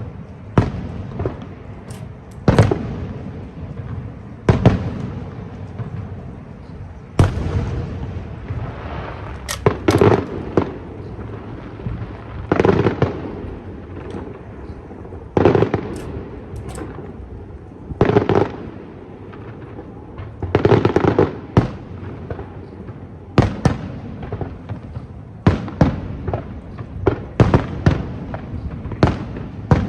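Aerial fireworks shells bursting overhead, a sharp bang every one to three seconds, some followed by brief crackling.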